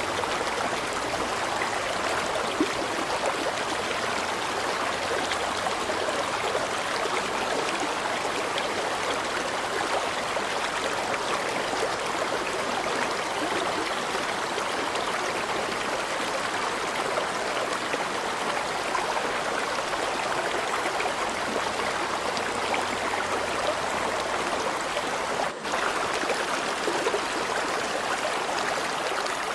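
Flowing river water, a steady even rush of moving water that dips for an instant about 25 seconds in.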